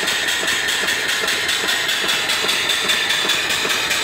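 Small steam engine running steadily under steam, belt-driving a car alternator: a fast, even beat with a constant hiss of escaping steam over it. It is running smoothly.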